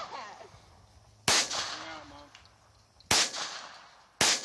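Three semi-automatic pistol shots: the first about a second in, the next about two seconds later, and the last about a second after that. Each ends in a short fading echo.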